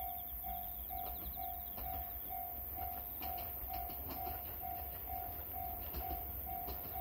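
Railway level-crossing warning bell ringing in an even rhythm, about two strokes a second, as a train approaches the station, over a low rumble.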